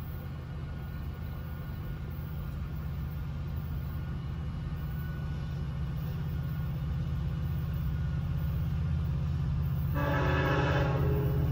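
Low steady rumble slowly growing louder as a train approaches, then a train horn sounds one blast of a little over a second, about ten seconds in.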